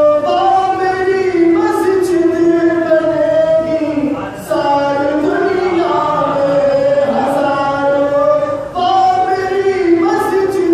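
A man chanting a devotional qasida in long, held melodic lines, with short breaks between lines about four and nine seconds in.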